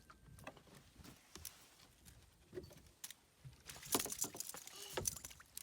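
Light clicks and rattles of a spinning rod and reel being handled while a cast line is worked, with a busier run of rattling for about a second near the end.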